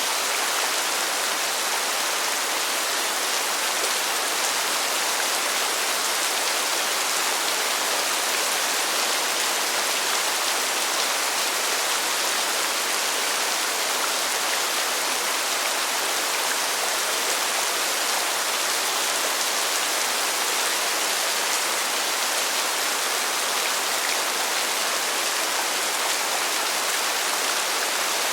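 Heavy rain pouring down steadily: a dense, even hiss of drops with no breaks or changes.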